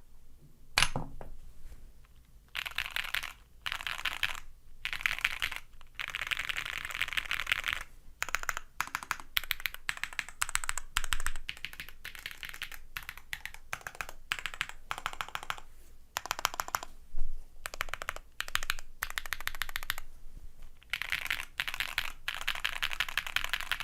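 Typing on a MONT CERVIN STS gasket-mounted custom mechanical keyboard with an aluminium plate, Bolsa ZAKU switches and PBT keycaps: fast runs of keystrokes in bursts of one to two seconds with short pauses between, and a single louder clack about a second in.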